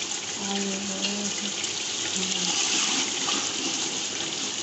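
Meat and masala curry sizzling and bubbling in oil in an aluminium pot, a steady hiss. The sound is the bhunai stage: the last of the water is cooking off and the meat has begun frying in its oil.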